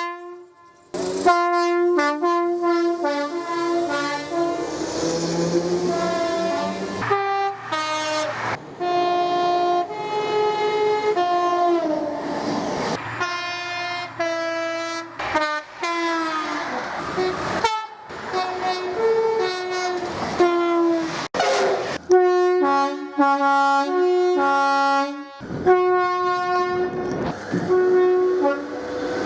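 Loud horns of a Class 66 diesel locomotive and a Class 08 diesel shunter sounding back and forth in a horn war: a long run of two-tone blasts at several pitches, often overlapping, with short breaks between them.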